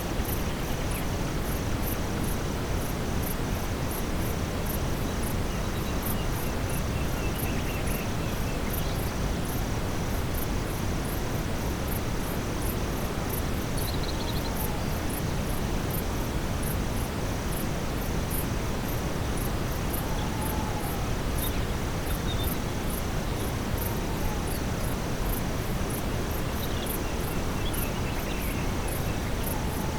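Steady brown noise, strongest in the low end, mixed with a forest ambience at nightfall: high-pitched insects chirping in an even, rapid pulse over a steady high hum, with a few faint short calls here and there.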